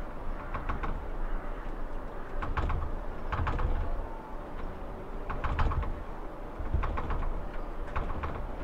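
Irregular clusters of light rattling clicks, several in quick succession every second or two, each with a low rumble beneath.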